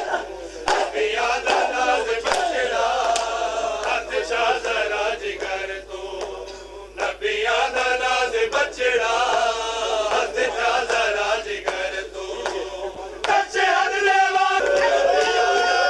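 A crowd of men chanting a noha together, kept in time by a steady rhythm of sharp chest-beating slaps (matam). Near the end a voice holds a long sung note.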